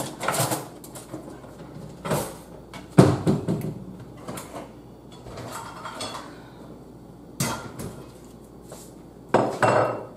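Kitchen utensils clattering and clinking as a utensil drawer is rummaged through for a spoon, with a few sharp knocks at irregular intervals, the loudest about three seconds in.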